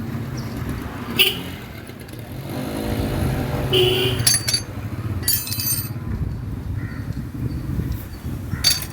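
Motorcycle and street-traffic engine noise running steadily, with several sharp metallic clinks scattered through it.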